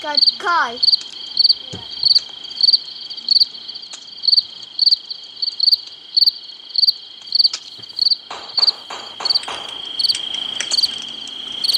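Cricket chirping from a video game's night-time forest ambience: short, evenly spaced chirps about one and a half a second over a steady high trill.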